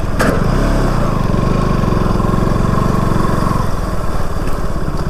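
Single-cylinder engine of a KTM RC 200 motorcycle idling steadily, with a sharp click just after the start.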